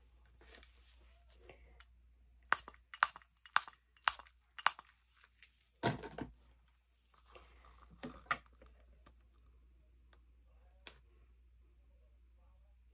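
Handling noises: a quick run of about six sharp taps or clicks a couple of seconds in, more single knocks after, with light rustling between.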